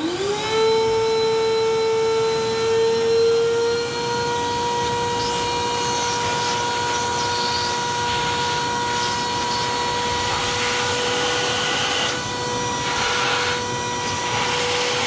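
Vacuum cleaner switched on: its motor whines up to speed within the first half second, then runs steadily with a strong hum and air rushing through the hose. The hiss shifts a little later on as the crevice nozzle is moved around the dash opening, sucking up dust.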